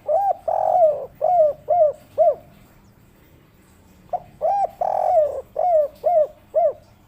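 Spotted dove (tekukur) cooing its 'kuk 3' song twice: each phrase is a short note, a longer drawn coo, then three short arched 'kuk' notes, with a pause of about two seconds between the phrases.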